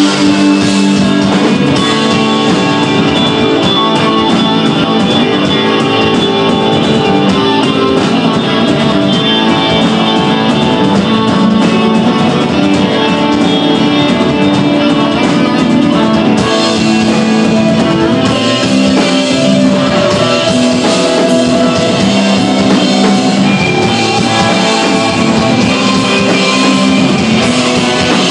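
Live desert rock band playing loud and steady: electric guitar over bass and drum kit.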